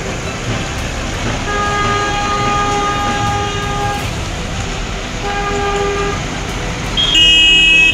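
Traffic on a rain-wet street with vehicle horns honking: a long horn blast about a second and a half in, a shorter one about five seconds in, and a louder, higher-pitched horn near the end.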